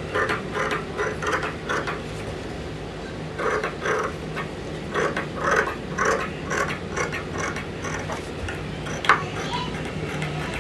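Large tailor's shears cutting through cloth: a run of short snips, a pause, then a second run, with a single sharp click near the end.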